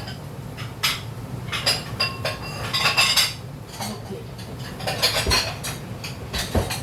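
Kitchen utensils clinking and knocking against cookware in an irregular string of sharp clinks, some with a brief metallic ring.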